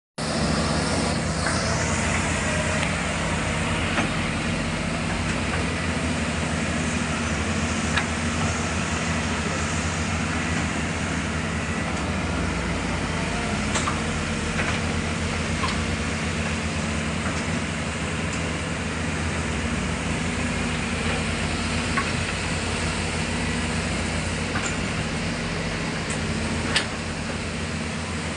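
Excavator's diesel engine running steadily, with a few short metallic knocks; the loudest comes near the end.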